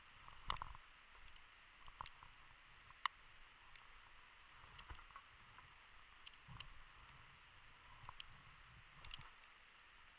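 Near silence, broken by faint, scattered clicks and knocks a second or two apart, the sharpest about three seconds in.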